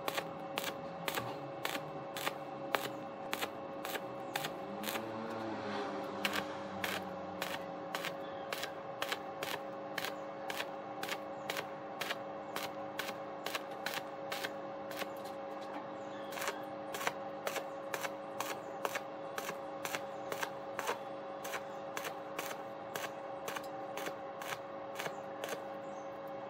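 Background music: a sustained droning pad under a quick, even ticking beat.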